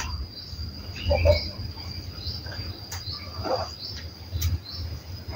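An insect trilling steadily at a high pitch, with a few faint soft knocks.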